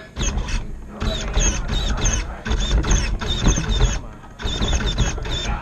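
A scale RC rock crawler's electric motor and geared drivetrain whine in stop-start bursts as the truck crawls over wooden obstacles, heard close from a camera mounted on the truck, with low rumbling and knocks from the chassis. The bursts break off briefly about a second in and again near four seconds.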